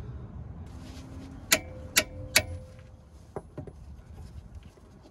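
Three sharp metal-on-metal clanks about half a second apart, the middle one leaving a brief ring, then a few lighter clicks. These are steel tools on a ball joint separator clamped to the outer tie rod end of a 1987 Volvo 740's front steering, working to pop the tapered stud out of the knuckle.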